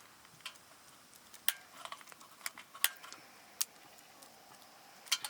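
A handful of sharp metallic clicks and light clinks at irregular intervals, the loudest about one and a half and three seconds in, as a camping lantern is handled to be lit.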